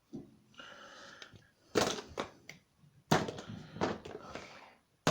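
Plastic wrestling action figures and toy accessories being handled and knocked together: a few sharp knocks and clatters, the loudest about two seconds in, about three seconds in and at the end, with rustling between.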